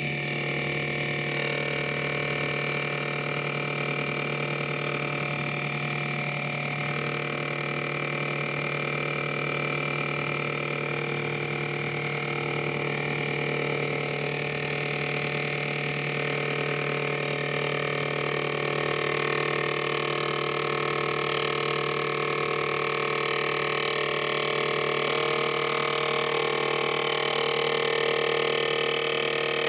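Mini metal lathe running at steady speed, its motor and spindle giving a steady whine of several tones while it turns a wooden dowel down with the cutting tool.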